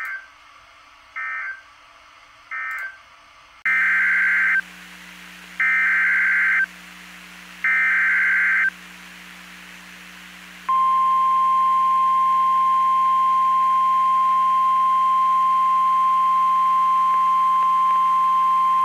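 Emergency Alert System SAME data bursts: three short, screechy end-of-message bursts, then three longer header bursts about two seconds apart. From about eleven seconds in, a steady single-pitch NOAA Weather Radio 1050 Hz warning alarm tone holds, announcing the next warning.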